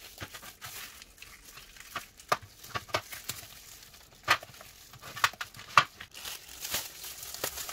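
Frozen paste cubes being popped out of a flexible silicone ice-cube tray by gloved hands: the crinkling of plastic gloves and baking paper, broken by irregular sharp clicks and taps as cubes snap free and drop onto the paper.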